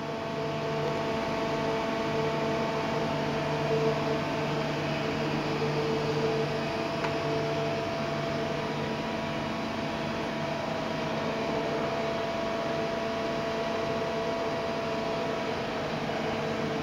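Steady hum of idling machine-shop machinery: several constant tones over an even fan-like hiss.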